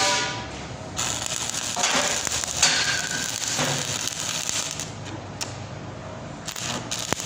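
Electric arc welding: the arc crackles and sizzles steadily, starting about a second in.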